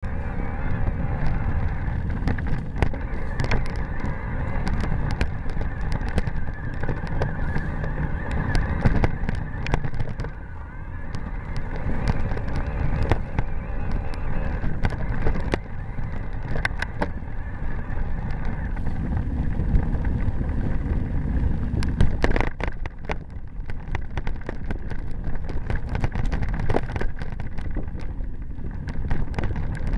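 Mountain bike ridden over a rough dirt and rock trail, heard from a bike-mounted camera: a steady rumble of wind on the microphone and tyres on dirt, with frequent sharp rattles and knocks from the bike over the bumps. A thin steady tone runs underneath.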